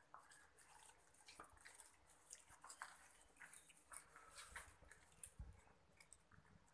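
Faint, irregular wet clicks and smacks of a cat chewing a piece of meat.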